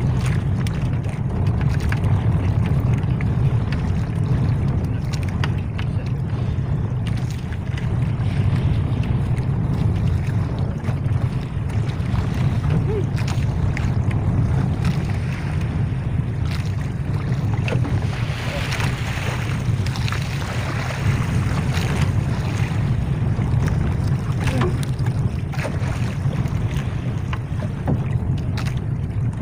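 Steady wind rumble on the microphone over sea water washing around a small outrigger boat, with scattered light knocks and taps.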